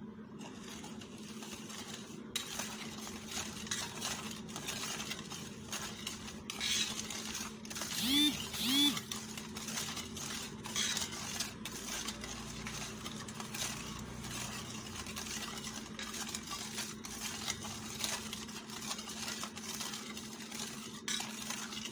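Metal spoon stirring coconut milk in a metal bowl, with small clinks and scrapes against the bowl as the sugar and salt are stirred in to dissolve. A steady low hum runs underneath, and two short pitched sounds rise and fall about eight seconds in.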